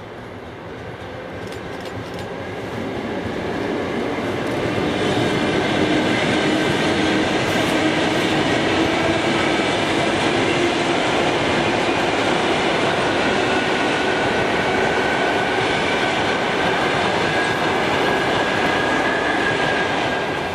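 An ЭП2ДМ electric commuter train approaching and then passing close by. The rush of its wheels on the rail builds over the first few seconds, then holds steady with a high whine running through it as the carriages go by.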